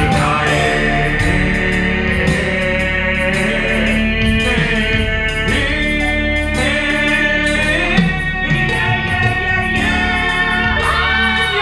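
Stage-show music with singing: long held sung notes over a steady instrumental backing.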